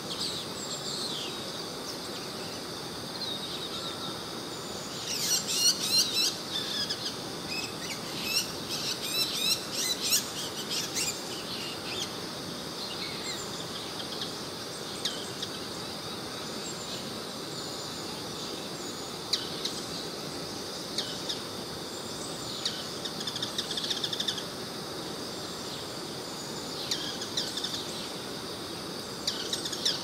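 Female bull-headed shrike giving its autumn high call (takanaki), sharp rapid notes in several bursts, the shrike's call for staking out a winter territory.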